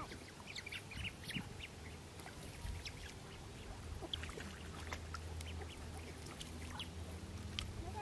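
Young mallards dabbling with their heads under water: faint, scattered small splashes and water plinks. A low steady hum comes up about halfway through.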